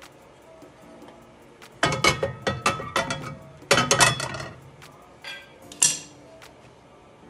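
Frying pan clattering and rattling against the cast-iron grates of a gas stove as it is lifted, tilted and set down to spread the oil. There are two runs of quick metal clinks and knocks, about two and four seconds in, then two single knocks.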